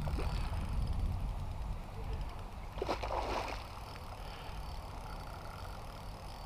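A single short splash on the pond surface about three seconds in, over a steady low rumble.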